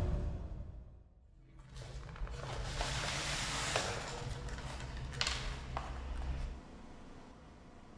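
The tail of a music cue fading out, then, after a moment of near silence, a low steady hum with soft rustling and a few light clicks of small objects and a bag being handled on a desk. The hum cuts off suddenly about six and a half seconds in, leaving faint room tone.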